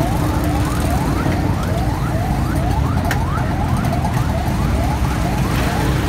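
A fast, even run of short rising chirps, about three a second, repeating like an electronic alarm, over the low hubbub of a crowded street.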